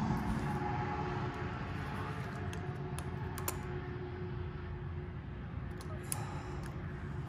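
A few light metallic clicks and taps as a small bolt and socket are handled and fitted by hand into a motorcycle frame-slider bracket, over a steady low background hum.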